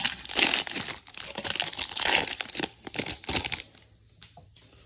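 Trading card pack wrapper being torn open and crinkled by hand, a dense run of crackles that stops about three and a half seconds in.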